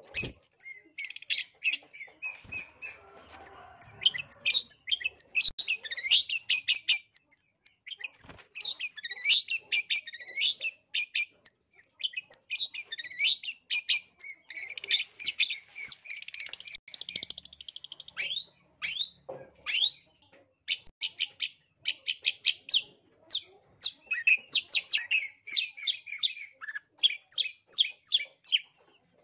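Long-tailed shrike (cendet) singing hard: a fast, nearly unbroken stream of sharp chirps, trills and mimicked notes of other birds, with brief gaps between phrases near the end.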